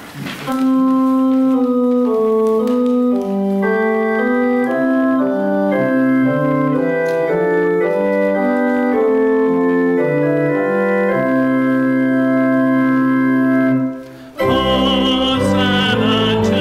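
Church organ playing a hymn introduction in held chords that move step by step. It stops briefly about fourteen seconds in, and the hymn begins, with singing voices over the organ and a low bass line.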